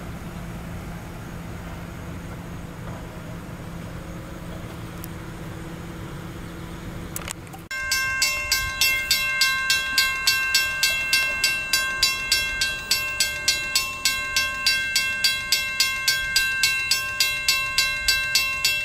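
A railroad grade-crossing warning bell ringing in a fast, even rhythm, about three to four strokes a second. It starts abruptly about eight seconds in and is the loudest sound. Before it there is a steady low hum and rumble of a train.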